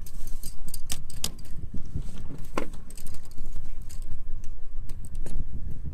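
Open-sea boat ambience: a steady fluttering low rumble of wind and boat, with scattered sharp clicks and knocks on deck.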